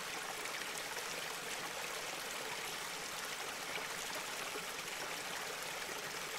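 Steady running water: a garden fountain pouring into a small pond, an even trickling splash that does not change.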